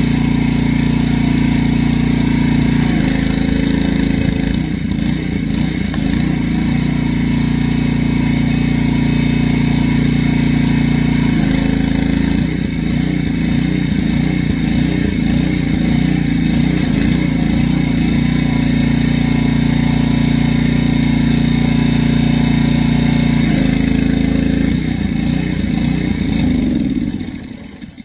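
Honda GCV200 single-cylinder engine running a Craftsman pressure washer after its carburetor jet was cleaned. The engine note changes several times as the pump load shifts. The engine dies away just before the end as it is shut off.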